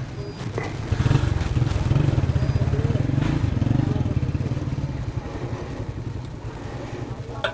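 Motorcycle engine idling with a low, even pulsing. It gets louder about a second in and eases back after about five seconds.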